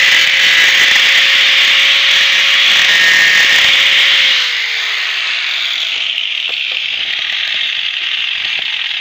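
Electric angle grinder with an abrasive disc running on the edge of an aluminium strip with a loud, steady hiss. About four seconds in it is switched off, and its whine falls in pitch as the disc spins down, leaving a quieter hiss.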